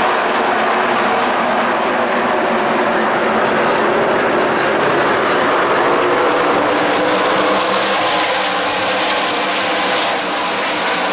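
A pack of NASCAR Craftsman Truck Series race trucks running at speed on a short oval, their V8 engines blending into one loud, continuous drone. The sound turns brighter and harsher about two-thirds of the way through.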